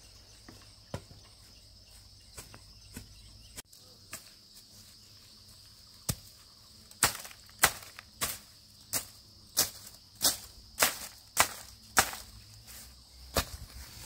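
Crickets chirring steadily at a high pitch. From about six seconds in, a run of loud, sharp knocks comes nearly twice a second, and a couple more follow near the end.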